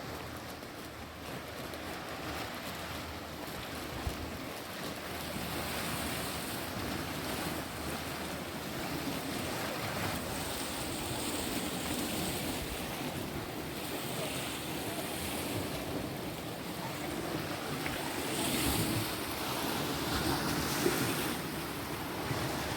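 Sea waves washing against a rocky shore, swelling and easing every few seconds, with wind buffeting the microphone.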